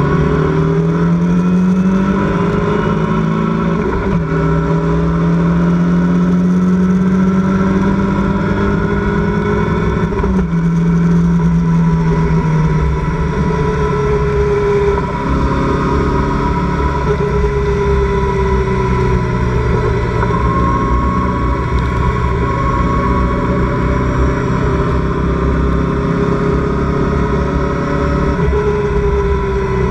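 Locost race car's engine heard from its open cockpit at speed: the revs climb, drop sharply twice, about four and ten seconds in, then run at a steadier, lower pitch for the rest, under a constant rush of wind and road noise.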